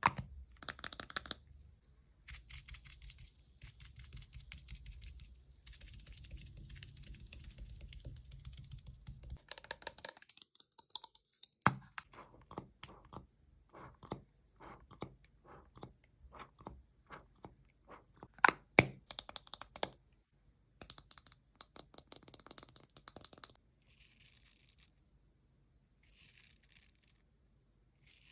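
Close-miked ASMR handling sounds of makeup and skincare being worked on a melon: scratchy rustling and tearing at first, then a run of sharp taps and clicks, the loudest about a third and two-thirds of the way through.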